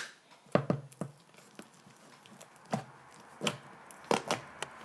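Small plastic slime containers being handled and opened: a scattered series of short clicks and knocks.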